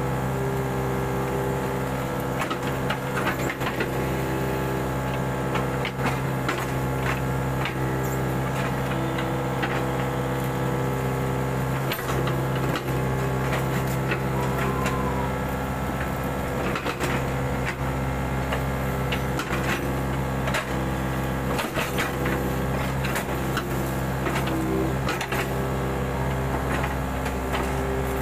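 Mini excavator's diesel engine running steadily under working load, its pitch holding level while a higher hum swells and fades, with scattered knocks and clatter from the machine working.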